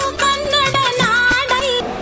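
Kannada song music: a bending melodic line over steady percussion beats, cutting off near the end.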